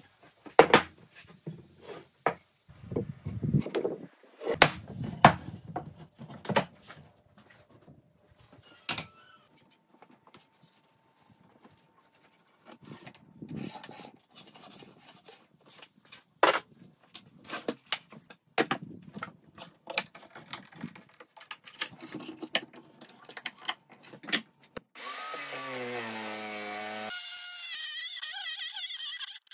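Irregular sharp knocks and clatters of wooden boards and tools being set down and shifted on a workbench, with a lull about ten seconds in. Near the end a Makita electric jigsaw starts a steady buzz, cutting an oak board.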